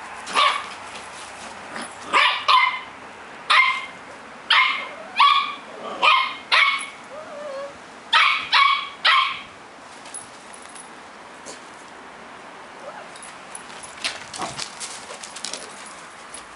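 Small puppies barking in short, sharp yaps during play, about a dozen barks spaced roughly half a second to a second apart; the barking stops about nine seconds in.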